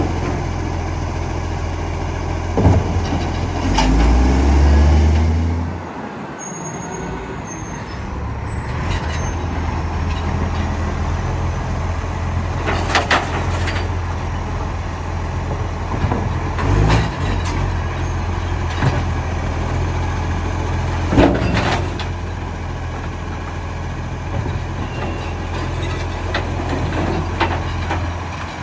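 Recycling garbage truck's diesel engine running, the truck having an exhaust leak. The engine swells louder about four seconds in, then drops back, and several sharp knocks ring out along the way.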